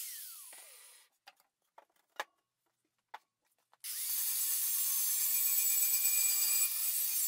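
Angle grinder on the pitted steel of an old compressor tank: it spins down with a falling whine as it is released, leaving quiet with a few light taps, then starts again about four seconds in and grinds the steel steadily, taking off the corrosion pitting.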